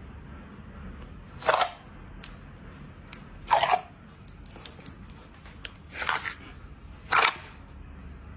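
Slime being squeezed and poked by hand: four short crackly squelches a second or two apart, with a few small clicks and pops between them.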